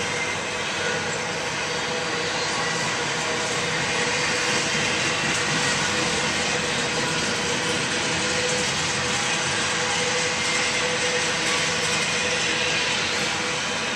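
Double-stack intermodal freight train's container well cars rolling past at speed: a steady, unbroken rush of steel wheels on rail with a faint steady tone running through it.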